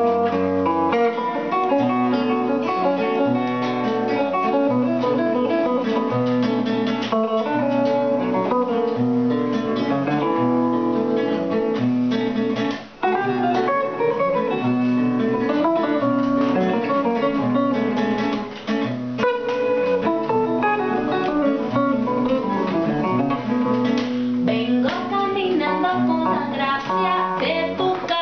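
Acoustic guitar strummed together with an electric guitar through a small amplifier, playing an instrumental passage of a trova song. A woman's singing comes in near the end.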